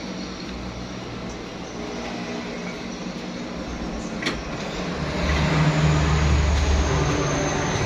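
Road traffic going by, with a vehicle's low engine rumble growing louder about five seconds in.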